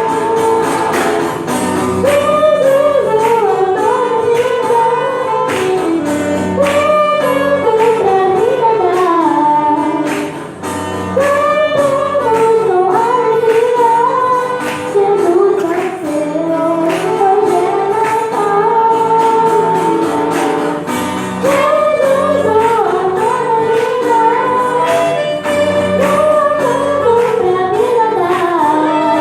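A female voice singing a flowing melody over instrumental accompaniment with a steady beat.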